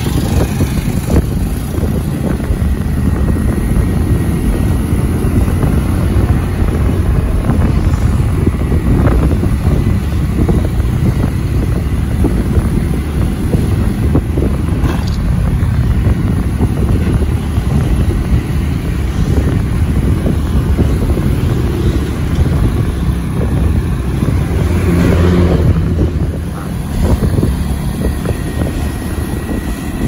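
Motorcycles riding along a road: steady engine and road rumble, with wind buffeting the microphone.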